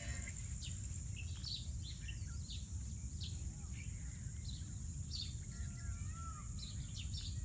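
Outdoor ambience: a steady high insect buzz with birds calling in short, scattered chirps, over a low rumble of wind or handling noise.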